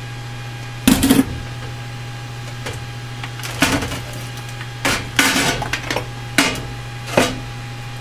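A soldering iron and battery wires handled on a foil-covered metal baking pan: about six short knocks and rattles, the loudest about a second in, over a steady low electrical hum.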